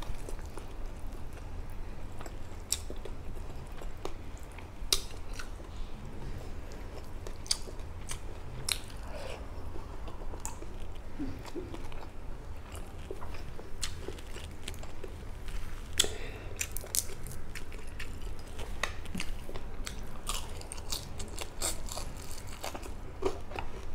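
Close-up chewing and crunching of crispy fried fish with rice, eaten by hand, with irregular wet mouth clicks and smacks.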